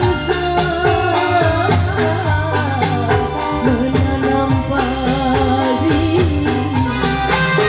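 Live Malay joget band music: a steady drum and tambourine beat under a melody that glides up and down, with a woman singing.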